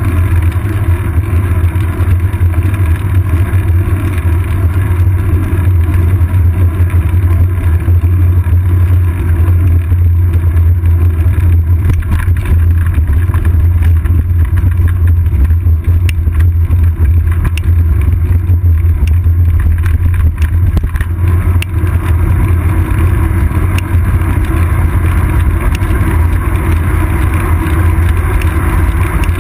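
Steady low rumble of wind buffeting and road vibration picked up by a GoPro Hero 2 mounted on a moving bicycle's seat post. Through the middle there is a scatter of small clicks and knocks, from the tyres rolling over a concrete section of the bridge deck.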